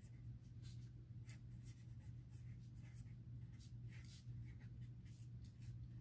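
Pen writing on paper: faint, irregular short scratching strokes as letters are formed, over a steady low hum.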